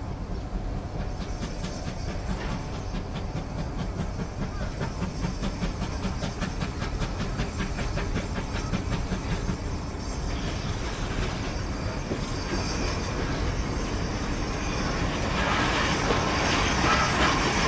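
C11 171 steam tank locomotive moving slowly without a train, hissing steam over a fast, even rhythmic ticking and a steady low rumble. It gets louder toward the end as it draws closer.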